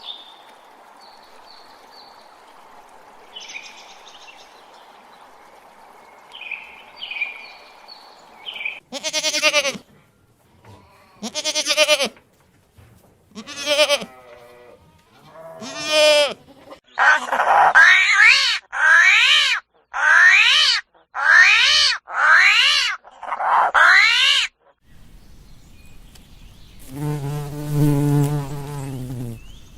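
A series of animal calls: four spaced calls, then six loud, wavering calls about a second apart, then a lower call near the end, over a faint hiss with a few high chirps at first.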